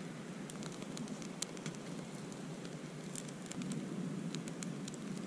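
Freshly lit twigs and kindling catching and crackling in a small folding stainless-steel wood-burning camp stove: scattered sharp crackles and pops over a steady low rush.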